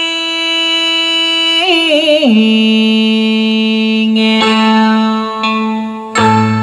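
A Vietnamese song from FM radio playing through a Victor mini hi-fi system's three-way speakers: a singer holds a long note, wavers and slides down to a lower held note about two seconds in, and the accompaniment with bass comes back in near the end.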